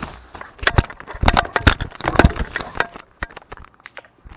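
Handling noise from a camera strapped to a dog: rapid, irregular clicks and knocks as the camera housing and mount bump and rub against the dog's fur. They thin out to a few scattered knocks about three seconds in.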